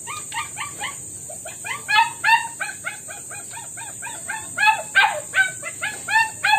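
A small dog barking in a rapid string of short, high yaps, several a second, the loudest about two and five seconds in.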